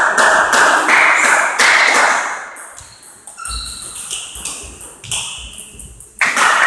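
Table tennis rally: the ball clicks off the bats and bounces on the table in a quick series of sharp taps. A loud, noisy wash of hall sound fills the first couple of seconds.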